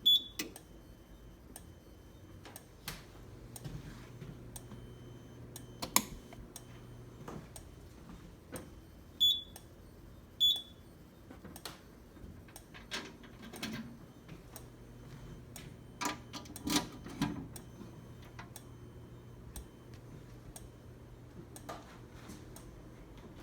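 Fire alarm control panel giving short high-pitched beeps, one at the start and two about a second apart near the middle, among scattered sharp clicks and knocks over a faint low hum.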